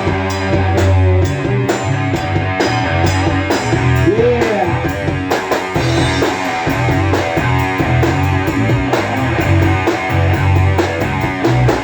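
A rock band playing an instrumental break between verses, with guitar, bass and drum kit. A single sung "yeah" comes about four seconds in.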